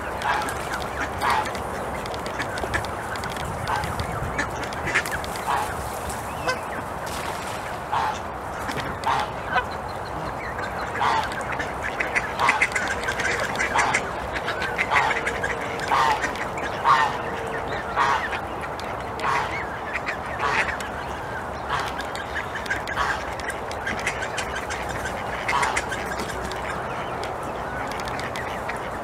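Waterfowl calling: short, clipped calls repeated about once a second, coming thicker through the middle stretch, over a steady background noise.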